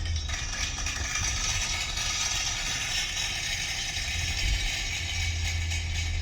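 A continuous, fast ratchet-like rattling that runs without a break, over a steady low hum.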